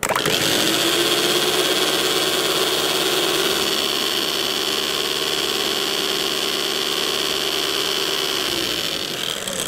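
Electric hand mixer whipping cream in a tall plastic beaker: the motor starts abruptly, runs at a steady speed with a whirring hum and hiss, then winds down and stops near the end. The cream is being whipped only to half-stiff, soft and creamy.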